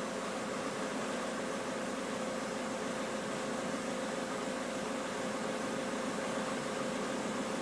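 Citroën C4 climate-control blower fan running at full speed: a steady rush of air with a constant hum. It is the fault in which the fan goes to maximum whenever the air conditioning or ventilation is switched on.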